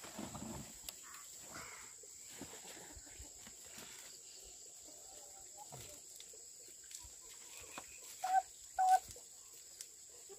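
Two short pitched farm-animal calls about half a second apart, some eight seconds in, over faint scattered rustling and a steady high hiss.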